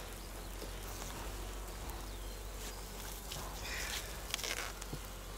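Buckfast honey bees buzzing steadily around an open hive, with a few faint knocks from the wooden frames and divider board being handled.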